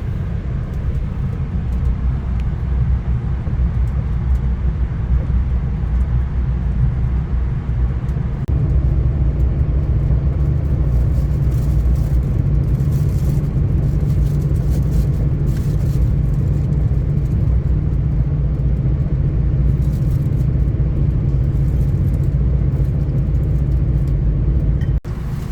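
VIA Rail Canada passenger train running at speed, heard from inside the coach as a steady low rumble that grows louder about eight seconds in.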